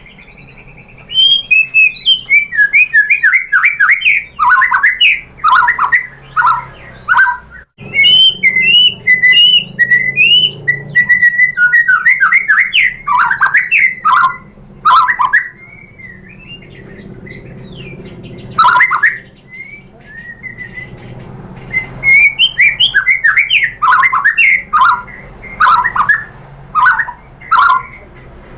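White-rumped shama singing: loud phrases of rapid, repeated whistled notes that sweep downward, broken by short pauses. It is lure song meant to provoke caged shamas into singing.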